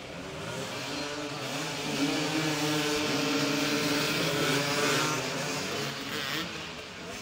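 Several motoball motorcycles revving and accelerating over a wet pitch. The engine noise swells about two seconds in and eases off near the end.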